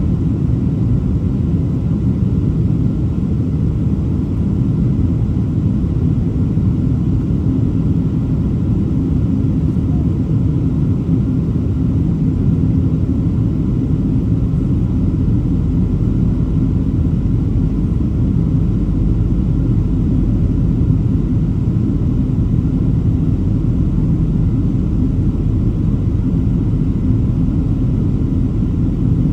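Airliner cabin noise: the steady low rumble of the jet's engines and airflow heard from inside the passenger cabin, even throughout.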